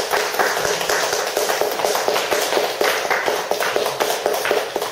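Audience applauding: many hands clapping at once, starting suddenly and thinning out near the end.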